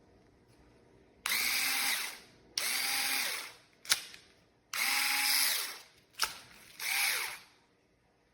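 Metabo HPT DB3DL2 3.6 V cordless screwdriver motor run four times in short bursts of about a second each, spinning up and winding down each time, with two sharp clicks in between.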